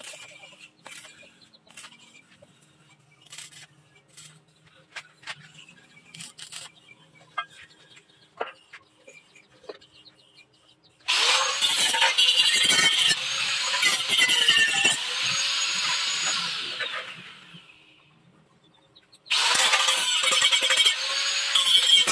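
Faint scattered crackling from arc welding, then an angle grinder starts suddenly about eleven seconds in and grinds welds on steel square tubing. It spins down about six seconds later and falls quiet, then starts again and grinds on.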